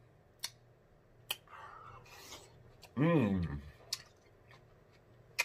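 Light, sharp clicks every second or so as fingers with long fingernails drop pickled jalapeño slices onto food in a glass baking dish. About three seconds in there is a short hummed "mmm".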